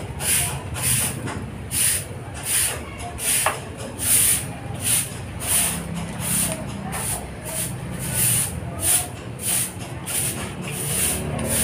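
Soft grass broom sweeping dry leaves and grit across a concrete floor into a long-handled dustpan, in short regular swishes about one and a half a second.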